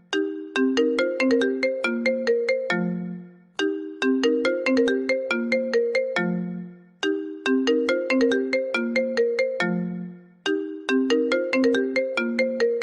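iPhone ringtone playing on a loop: a quick run of short notes that ends on a lower, longer note and fades, repeating about every three and a half seconds.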